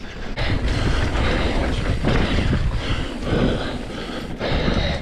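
Mountain bike riding down a dirt forest trail: a continuous rough rumble of tyres over the ground and the bike rattling, louder from about half a second in, with a short dip about four seconds in.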